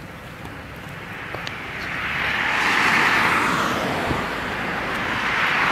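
Road traffic: cars passing close by with a rushing tyre and engine sound. One swells to its loudest about halfway through and fades, and a second comes up near the end.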